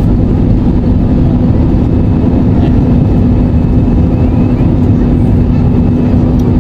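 Jet airliner's turbofan engines at takeoff power, heard inside the cabin at a window seat over the wing: a loud, steady rush of engine and air noise with a steady low hum running through it as the plane lifts off.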